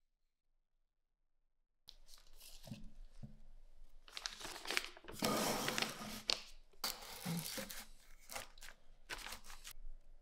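Clear plastic sheeting crinkling and rustling in bursts as it is handled, with a few dull knocks of wooden boards; almost silent for the first two seconds.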